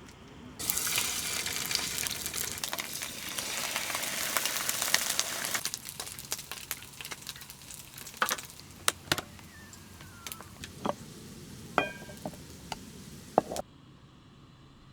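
Food sizzling and frying in a hot pan, loud at first and then settling to a quieter sizzle, with scattered clicks and clinks of utensils against the pan. The sound starts and cuts off abruptly.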